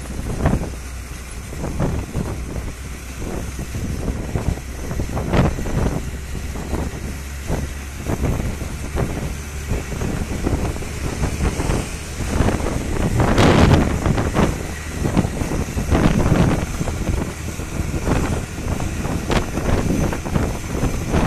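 Ashok Leyland tractor-trailer truck under way: its diesel engine drones steadily, with uneven rushes of wind on the microphone and irregular knocks and rattles on top, loudest about two-thirds of the way through.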